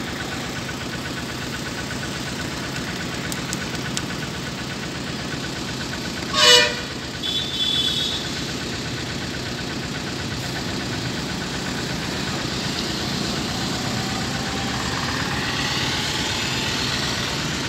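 Vehicle engine idling steadily, with one short horn honk about six and a half seconds in and a brief high beep just after.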